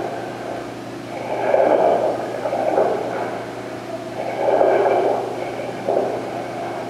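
A diver breathing slowly and regularly through an AGA full-face mask regulator, each breath a rushing surge that rises and falls, heard over the underwater communication link.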